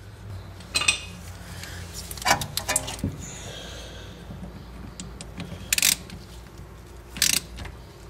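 Ratchet and steel wind-back tool clicking and clinking in several short bursts, a second or two apart, as the rear brake caliper piston is turned back into its bore.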